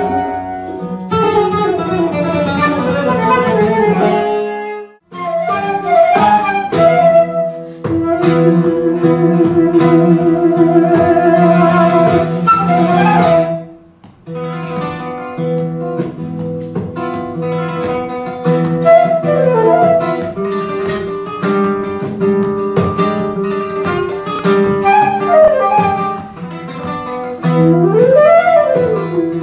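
Persian–flamenco fusion ensemble playing: flamenco guitar and flute carry the melody over frame-drum strokes, with sliding flute phrases. The music breaks off briefly twice, about five and fourteen seconds in, where one passage cuts to another.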